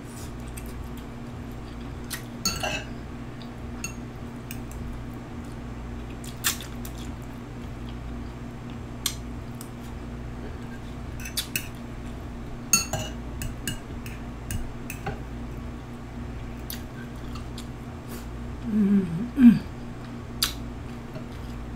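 Eating sounds: a fork or other cutlery clicking now and then against a plate, a dozen or so separate sharp clicks, over a steady low electrical hum, with a short murmured sound from the eater near the end.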